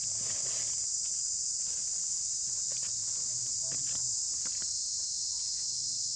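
Steady, high-pitched drone of insects calling in the surrounding forest, with a few faint ticks and rustles.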